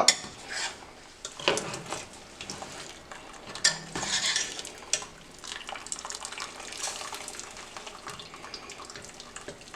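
Metal utensils clinking and knocking against a cooking pot as boiled noodles are lifted out to drain, with water splashing briefly about four seconds in.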